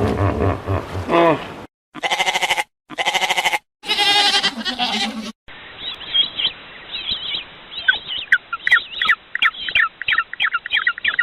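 Three bleats, each a wavering, quavering cry with short gaps between them. After that comes a separate recording of a bird chirping rapidly and repeatedly, with quick high notes that continue to the end.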